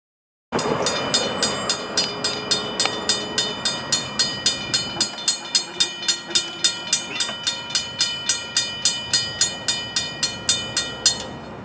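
Railroad grade crossing bell ringing rapidly, about three strikes a second, while the crossing gates rise; it stops about eleven seconds in.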